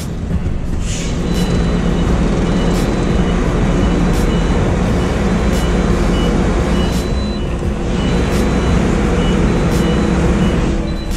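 Tractor-trailer's diesel engine running steadily as the truck maneuvers, with a high reversing alarm beeping about twice a second.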